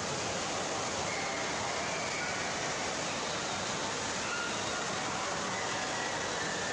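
Steady rushing-water din of an indoor water park hall, with faint distant voices mixed in.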